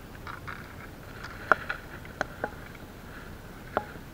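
Light rustling and several sharp, irregularly spaced clicks and taps of hard plastic as gloved hands handle fishing tackle: a plastic bait bag and a float.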